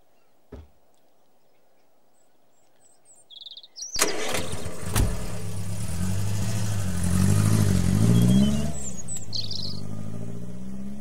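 A car engine starts about four seconds in after a few brief cranking sounds, then runs loudly with its pitch rising and falling, and fades slowly away near the end. Faint bird chirps come before it.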